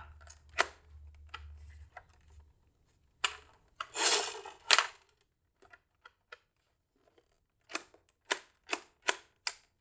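Plastic clicks and a scraping rustle as a Nerf Zombie Strike Brainsaw toy blaster is handled. Near the end comes a run of about five evenly spaced clicks, roughly two a second.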